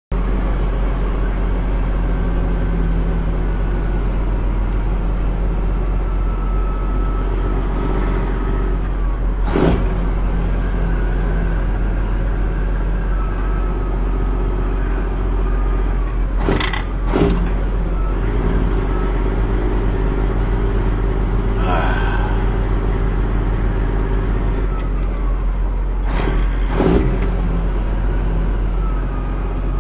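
Peterbilt 379 semi truck's diesel engine running low and steady inside the cab as the truck creeps along at walking pace, with a handful of short sharp noises scattered through.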